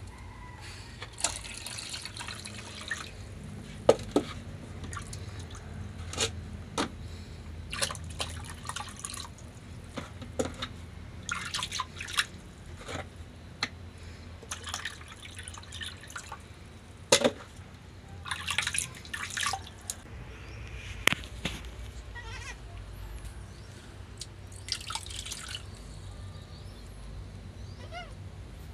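Water splashing and dripping in a string of short, irregular splashes as water is poured and scooped by hand from a plastic bucket and tub onto a wet concrete floor.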